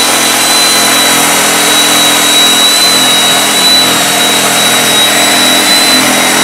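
RIDGID B-500 portable pipe beveling machine running and cutting a weld bevel on the end of a steel pipe: a loud, steady motor and cutting noise with a thin, high whine held throughout.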